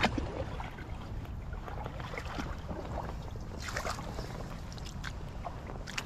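Low wind rumble on the camera microphone, with rustling and a louder swish about three and a half seconds in as it brushes through tall bankside grass.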